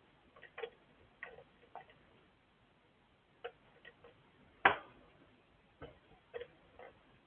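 Irregular light clicks and taps, about a dozen, with one sharper, louder knock a little past halfway.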